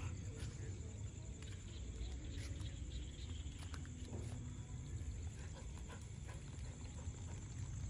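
Faint vocal sounds from two dogs playing roughly together, over a steady low rumble and a thin, steady high-pitched whine.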